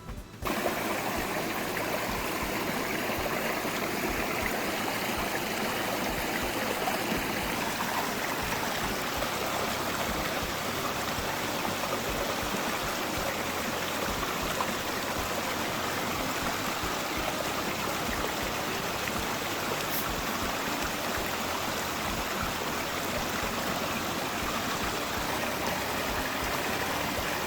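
Valley stream running: a steady, even rush of flowing water.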